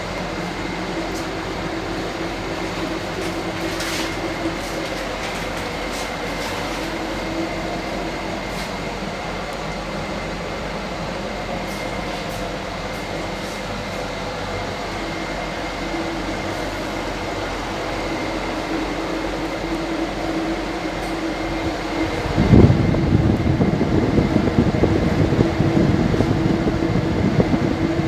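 Steady mechanical hum of the tram car's air conditioning and fans, with faint steady tones in it. A louder, uneven low rumble sets in about three-quarters of the way through.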